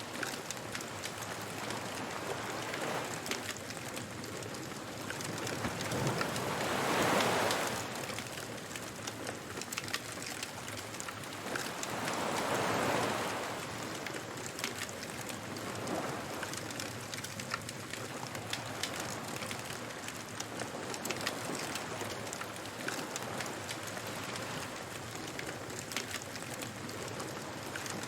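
Beach bonfire ambience: a wood fire crackling with many small pops over a steady wash of surf. Waves swell in and fade several times, loudest about seven and thirteen seconds in.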